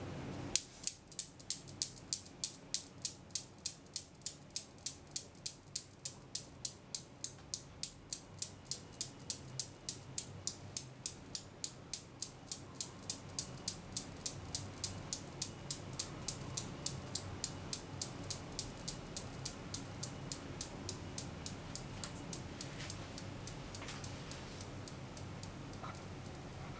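Newton's cradle: its metal balls clacking against each other in an even rhythm of about three sharp clicks a second. The clicks slowly grow fainter as the swing dies down.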